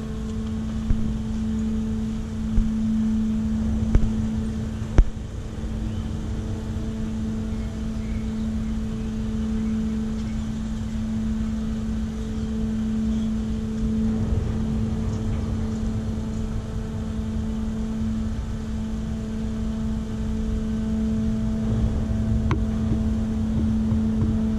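Berthed car ferry's machinery running: a steady low hum over a rumble, with a few sharp knocks in the first five seconds and another near the end.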